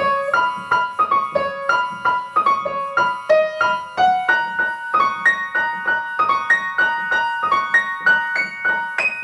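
Piano played one note at a time at an even pace, about three notes a second, going over a short simple tune again and again as it is being learned.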